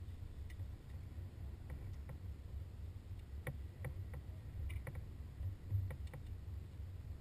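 Low rumble of wind on the open water, with scattered light clicks and taps of fishing tackle as rods are worked in a small boat, most of them in the second half.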